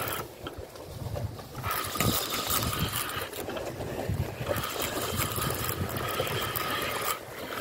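Spinning reel being cranked in spells of one to three seconds, a steady mechanical whirr of the reel's gears as line is wound in, with a low wind rumble underneath.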